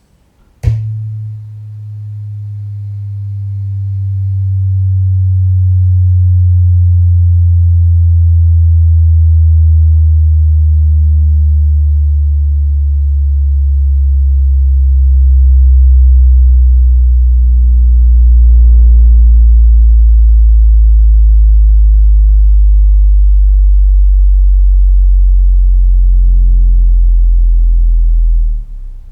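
Deep test tone for a subwoofer check: one loud, steady hum that sinks slowly in pitch and cuts off suddenly near the end.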